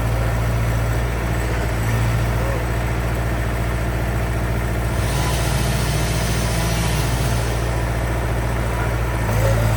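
Skid steer engine running steadily with a deep hum. Between about five and seven and a half seconds in the engine note shifts and a hiss rises.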